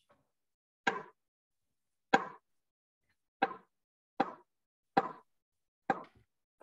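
Kitchen knife slicing through mushroom caps on a wooden cutting board, the blade knocking the board six times at about one-second intervals.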